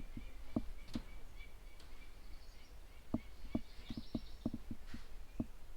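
Scattered soft knocks and taps, irregularly spaced, over faint bird chirps.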